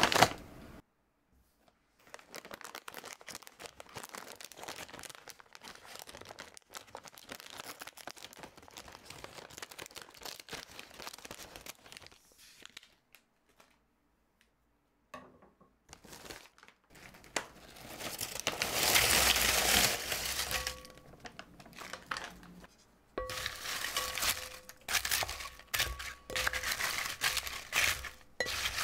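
Potato chip bag crinkling and rustling as it is handled and opened, followed about two-thirds through by a louder rush like chips tipping out, then dense crunching and crackling of salted potato chips being stirred in a glass bowl with a wooden spatula.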